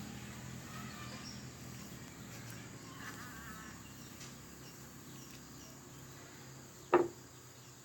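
Knife cutting an orange in half: mostly quiet, with a steady low hum and faint chirping, then one sharp knock of the knife near the end.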